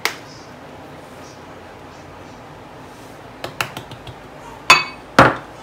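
Small spice jars being handled: a sharp click at the start, a few light clicks about three and a half seconds in, and two sharper clicks near the end, from the jars' plastic lids and the jars knocking on the glass board.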